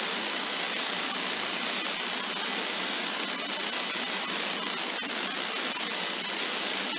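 Steady hiss of background noise on the video-call audio line, even and unbroken, with no voice.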